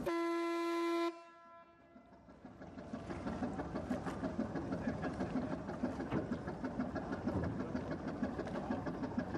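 A ship's whistle gives one steady blast of about a second, then cuts off with a short echo. After a short lull a boat engine runs with a steady, even beat.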